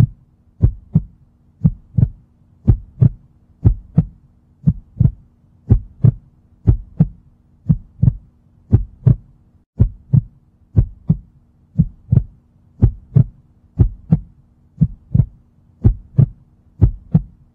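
Heartbeat sound effect: steady paired lub-dub beats, about one beat a second.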